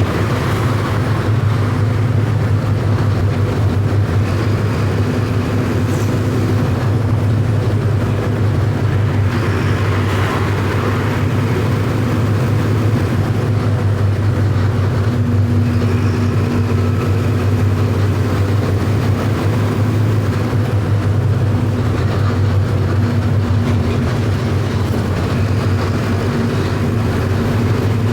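Mercedes-Benz OF 1519 bus's four-cylinder electronic diesel engine running steadily, a low drone that holds its pitch.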